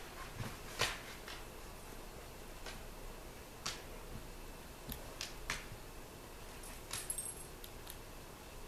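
A few faint, sharp clicks and taps, scattered irregularly with a small cluster in the middle, over quiet room noise.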